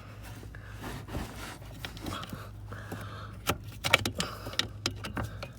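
Scattered plastic clicks and rattles as a brake pedal switch is twisted out of its mount behind the pedal and handled on its wiring harness, over a steady low hum. The clicks come thicker from about halfway in.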